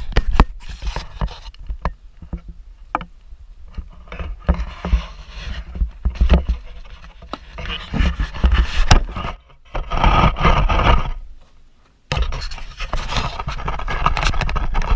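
Camera handling noise: scraping and rubbing against the microphone with repeated knocks and clicks, over wind buffeting. It drops away briefly and starts again abruptly near the end.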